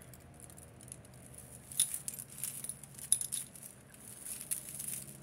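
Pieces of jewelry clinking and rattling as they are handled, with scattered small clicks and two sharper clacks, about two and three seconds in.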